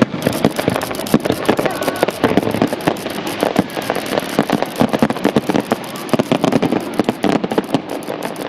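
Fireworks exploding in quick succession: a dense run of sharp bangs and crackling, many reports a second, from shells and crackling stars bursting together.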